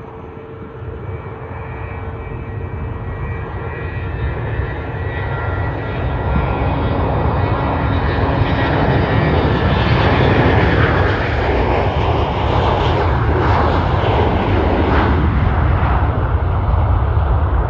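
A large aircraft's engines roaring past, growing steadily louder over about ten seconds and then holding loud, with a deep rumble and a high whine.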